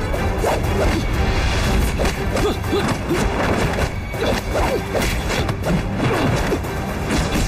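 Dramatic film score over a kung fu fight, with a quick run of punch-and-kick impact hits and whooshes of moving limbs and clothing.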